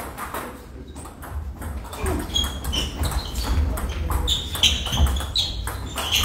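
Table tennis rally: the celluloid ball clicks and pings off rubber bats and the table in quick, uneven hits, with more hits from neighbouring tables. Shoes shuffle and stamp on the wooden floor as a player lunges.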